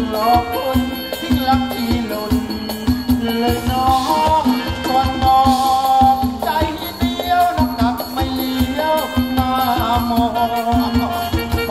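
Thai ramwong dance band playing live: a held melody line over a bass line and a quick, steady drum beat.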